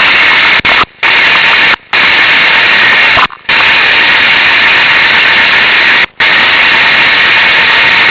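Zündapp M50 Bergsteiger's small two-stroke single-cylinder engine running at a standstill, heard as a loud, harsh, even noise close to the microphone. The sound drops out suddenly and briefly four times.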